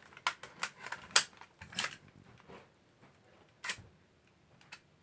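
Sharp plastic clicks and clatter of a BB gun's magazine being worked into the gun: a quick run of clicks in the first two seconds, the loudest about a second in, then two single clicks later on.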